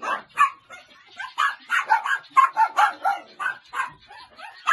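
Small dogs barking in quick, overlapping yaps, with a short lull about a second in.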